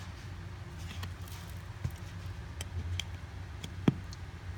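A few light taps and clicks, then one sharper knock near the end, from a vacuum cleaner's plastic dust bin being handled and knocked to empty it, which is proving awkward.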